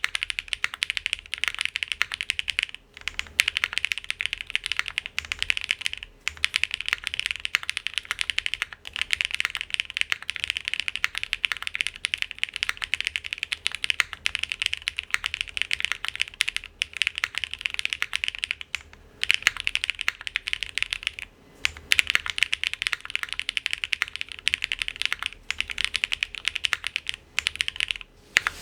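Fast, continuous typing on a plateless Geonworks W1-AT mechanical keyboard with lubed Gateron x Geon Raw switches on a 1.2 mm PCB, with Cherry snap-in stabilizers; a steady stream of key clacks broken by a few brief pauses.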